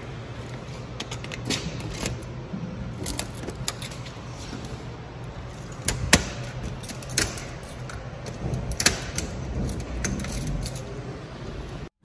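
Keys jangling and the small metal door of a post office box clicking and clacking as it is unlocked and opened, with the sharpest clack about halfway through. A steady low hum runs underneath.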